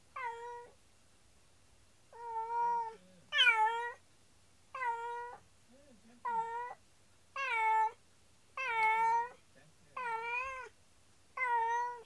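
Domestic cat meowing over and over: nine drawn-out meows, each under a second long, coming roughly once a second. It is calling for its owners while left home alone.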